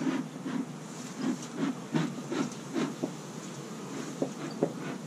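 Bee smoker's bellows being pumped, puffing smoke in a run of short chuffs about two or three a second, with a few more near the end. This is the smoking that calms the bees while the hive is open.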